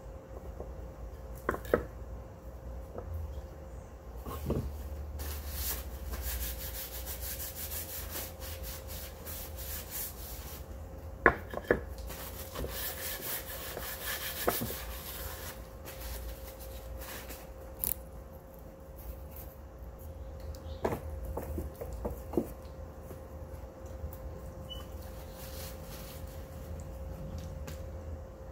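Paper towel rubbed over a flat white board by a gloved hand, in two long stretches of rubbing, with scattered knocks and taps of objects handled on a plastic-covered table, over a steady hum.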